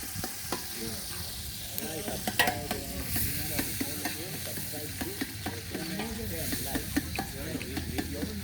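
Cooking in a pot: a spoon stirring and scraping, with repeated small knocks against the pot and a frying sizzle.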